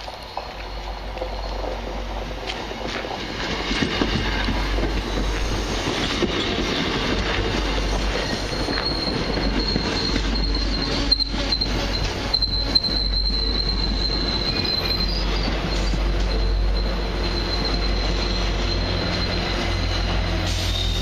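MBTA commuter rail train pulling into a station, the cars rolling by with clicking wheels and a running rumble that builds over the first few seconds. A high, thin squeal of the wheels braking comes in about eight seconds in and holds as the train slows.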